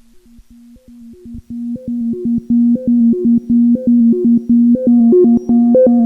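Modular synthesizer playing a fast, repeating sequenced pattern of short pitched notes over a held low note. It fades in over the first two to three seconds, then plays at a steady level.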